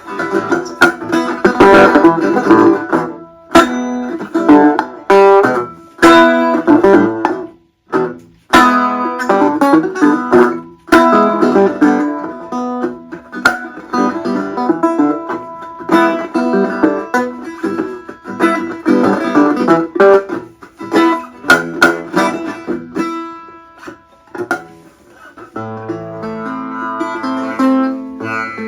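Dobro resonator guitar being picked: quick runs of plucked notes broken by short pauses, settling near the end into held, ringing notes.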